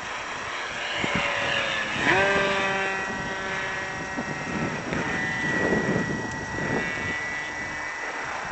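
Electric motor and propeller of a GWS Corsair radio-controlled model plane whining, the pitch rising sharply about two seconds in as the throttle opens, then holding and shifting. Gusty wind buffets the microphone.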